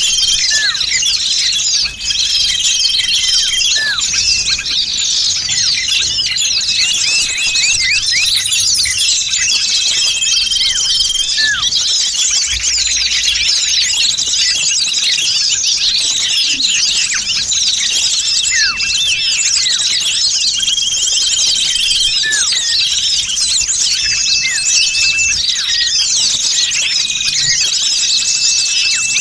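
A dense, unbroken chorus of many small songbirds chirping and twittering at once, with short held whistled notes recurring every couple of seconds: a noisy small-bird lure recording (suara pikat burcil ribut) used to attract small birds.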